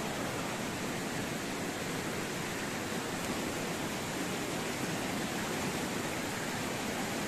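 Steady, even rush of flowing river water, unbroken throughout.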